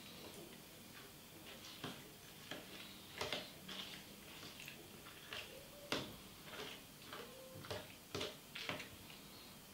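Metal teaspoon stirring and scraping a thick dessert in a small plastic cup: faint, irregular clicks and scrapes of the spoon against the cup, several a second at times.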